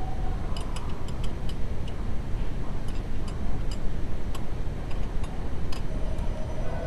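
Irregular light clicks and ticks over a steady low rumble, with a steady tone coming in near the end.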